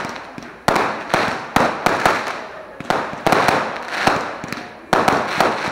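Fireworks display: aerial shells bursting overhead, five or so sharp bangs about a second apart, each trailing off in a fading crackling hiss as the stars burn out.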